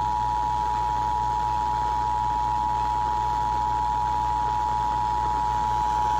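Emergency Alert System attention signal: two steady tones (853 and 960 Hz) sounding together as one harsh, unbroken alarm over FM radio. It signals the start of an emergency alert, here a severe thunderstorm warning.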